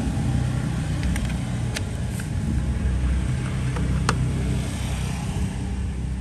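Steady low rumble of road traffic, with a few sharp clicks from small objects being handled about one, two and four seconds in.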